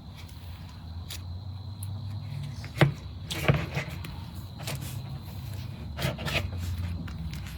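Slime being squeezed and poked by hand, giving scattered sticky pops and crackles. The sharpest pop comes a little under three seconds in, with further clusters of crackles around three and a half and six seconds.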